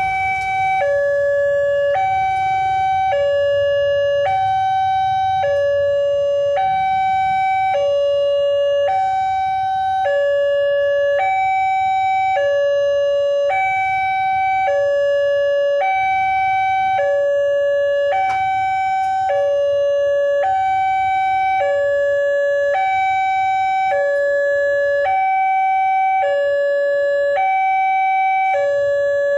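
Electronic two-tone warning siren of a railway level crossing, alternating steadily between a higher and a lower tone, each held about a second. It is the crossing's alarm that a train is approaching.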